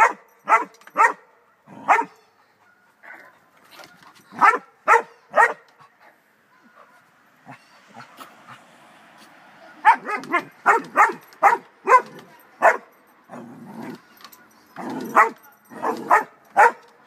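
A dog barking in runs of short, sharp barks, about two a second, with pauses between the runs.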